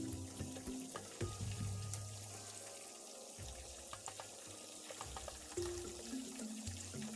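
Chicken wings deep-frying in hot oil: a steady crackling sizzle with scattered pops, under background music.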